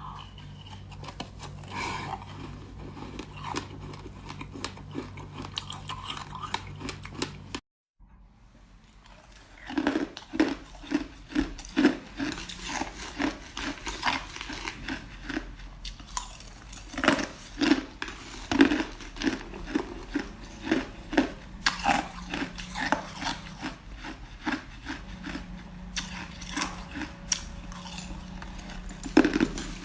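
Ice being crunched and chewed: a run of short, crisp crunches at about two a second, broken by a brief silence about eight seconds in.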